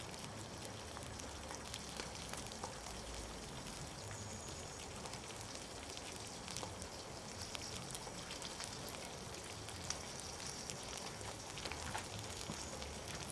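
Barbecue sizzling and crackling: a steady hiss with many small pops and crackles throughout.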